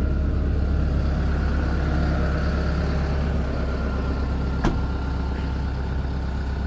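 Excavator's diesel engine running steadily with a deep, even hum, and a single sharp click about four and a half seconds in.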